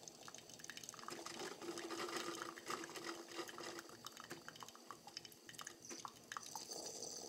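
Tassimo pod coffee machine dispensing the last of an espresso shot into a cup: faint dripping and trickling with small ticks, and a faint steady hum during the first half.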